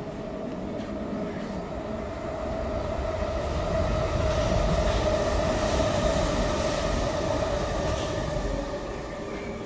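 A passing vehicle: a steady whine over a low rumble that swells to a peak about halfway through and fades toward the end.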